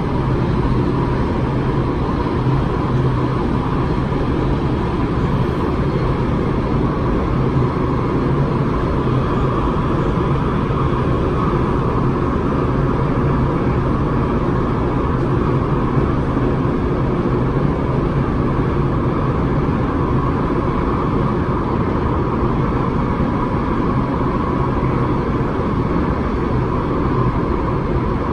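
Inside a carriage of an MTR West Rail Line train running at speed through a tunnel: a loud, steady running noise from wheels, rails and motors, with a constant low hum.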